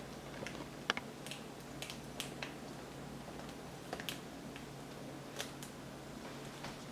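Scattered faint clicks and light taps from hands working on a laptop display panel, peeling tape back from its ribbon connector, over a steady low hum.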